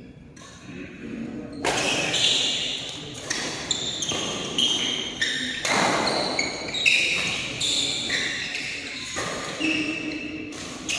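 Badminton doubles rally: rackets striking the shuttlecock in a string of sharp hits, roughly one a second, starting about one and a half seconds in, with short high squeaks from shoes on the court mat between strokes. The hits ring in a large hall.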